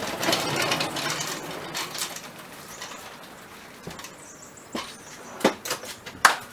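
A drawer-slide lever being pushed to switch the dust-collection blast gates: a rough sliding rattle that fades, then a few sharp knocks in the last two seconds as the gates move.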